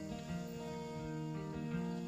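Background instrumental music of held, plucked-sounding notes that change every half second or so.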